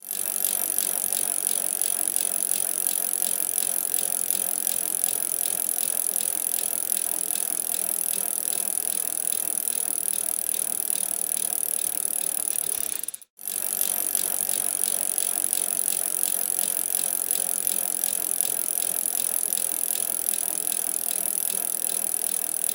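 Fast, continuous scratching and rattling of a pen drawing a picture, with a short break just past halfway.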